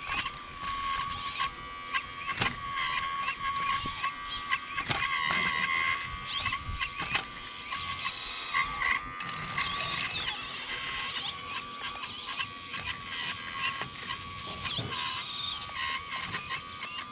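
High whine of a model RC excavator's electric hydraulic pump and motors: a steady high tone that shifts slightly in pitch as it works, with short squeals and chirps over it.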